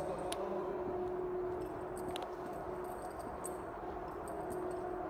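A steady low electrical or ventilation hum of a large indoor space, with a few faint scattered ticks.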